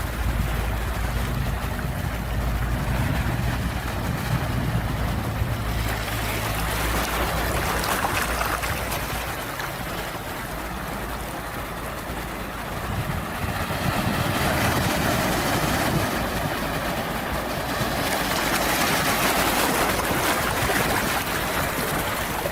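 Ocean waves breaking and washing in slow surges that swell and ease every several seconds, with a low rumble in the first few seconds.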